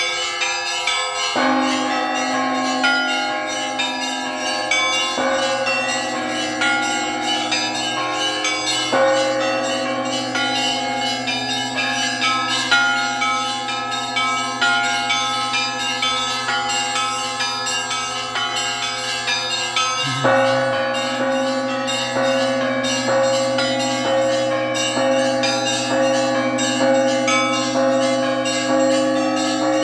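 Russian Orthodox church bells rung together: a quick, dense clatter of small bells over deeper bells struck every few seconds, their tones ringing on between strokes.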